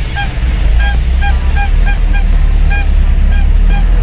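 A quick, irregular run of short, high honks, about two to three a second, over the steady low rumble of the truck's idling engine in stop-and-go traffic.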